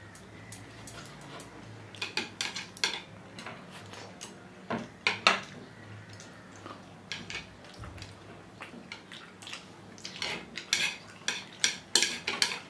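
Chopsticks clicking and scraping against dishes while picking up noodles. The clicks come in scattered clusters, busiest about two seconds in, around five seconds, and over the last few seconds.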